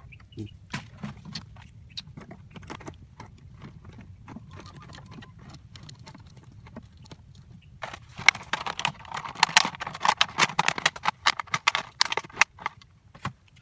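Thin plastic water bottles and their screw caps being handled and twisted by hand: scattered clicks and knocks, then a louder run of rapid crackling about two-thirds of the way through as the plastic is worked.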